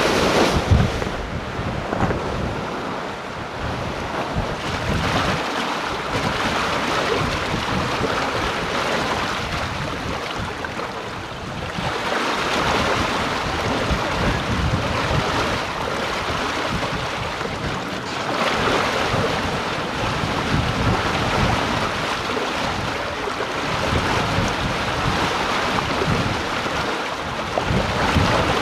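Sea water rushing and splashing along the hull and in the wake of a sailing yacht under way in strong wind, swelling and easing in surges, with wind buffeting the microphone.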